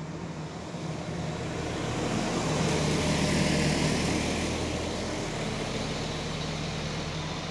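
SA139 diesel railcar running as it pulls into a station: a steady low engine hum under a rumble and hiss that swell to a peak about three seconds in, then level off.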